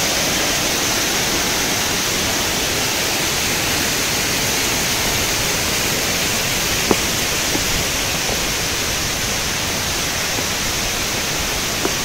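Waterfall water rushing in a steady, unbroken roar of noise, with a couple of faint clicks about seven seconds in.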